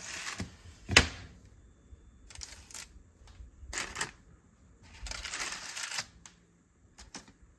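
Metal baking sheet set down on a glass cooktop with a sharp clack about a second in, then several short rustles and light scrapes as an oven-mitted hand shifts the parchment paper and biscuits on the tray.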